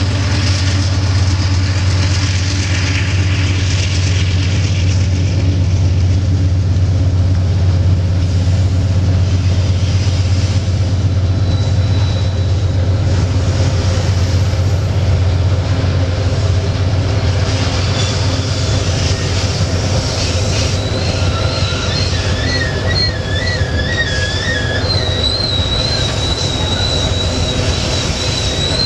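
Iron-ore freight train rolling through a curve with a steady low rumble of wheels and wagons. From about twenty seconds in, a wavering high-pitched wheel-flange squeal joins in.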